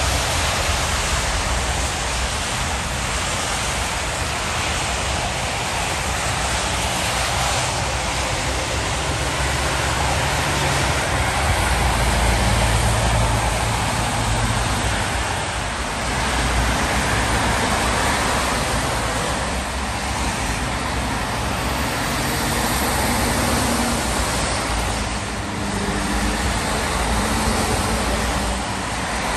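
Steady motorway traffic on a wet road: tyre hiss and spray with the low rumble of articulated lorries passing, swelling and easing several times.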